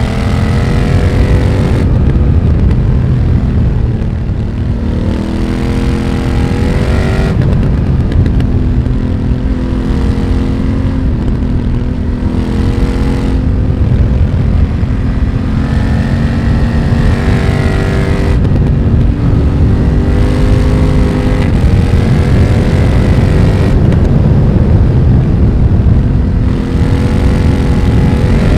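BMW F900R's parallel-twin engine, heard through a Mivv X1-M slip-on exhaust, pulling hard under way. Its note climbs and then breaks off sharply about five times as the bike runs up through the revs and changes gear.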